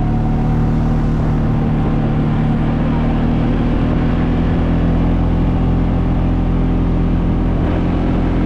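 ATV engine running steadily while riding, its pitch wavering slightly.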